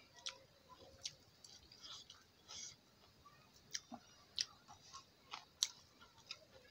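Close-up eating sounds: chewing with soft wet mouth clicks, and fingers mixing rice on a steel plate. The clicks come at irregular intervals, about one or two a second.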